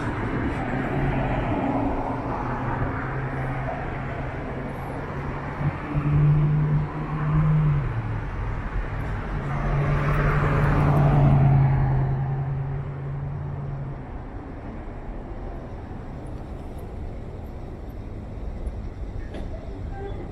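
City street traffic: a low, steady engine drone with tyre noise, swelling loudest as vehicles pass about six and again about ten to twelve seconds in, then settling to a quieter background hum.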